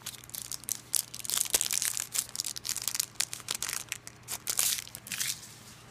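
Foil wrapper of a Pokémon trading-card booster pack crinkling and crackling as it is torn open by hand; the crinkling dies away shortly before the end.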